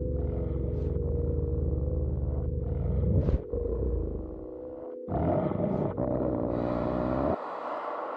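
Droning soundtrack score: a deep rumbling roar under held steady tones, which thins out about four seconds in, comes back a second later, then the low rumble cuts off suddenly near the end, leaving a thinner, higher drone.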